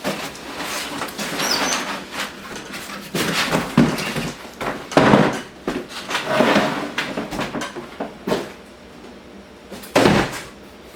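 Cardboard packaging and stackable tool cases being handled: scraping and rustling with several knocks and thumps, the loudest thump about ten seconds in, as the cases are pulled out and set down.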